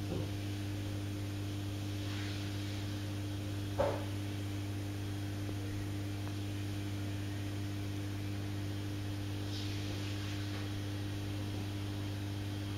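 Steady low electrical hum, with a single short knock about four seconds in.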